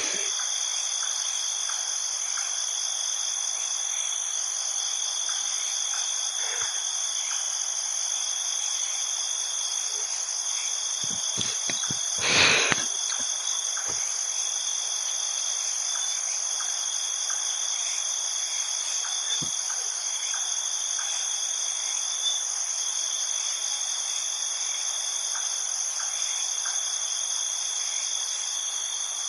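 A steady, high-pitched chorus of night insects, crickets among them, in two unbroken shrill bands. Near the middle comes a brief louder noise with a few knocks.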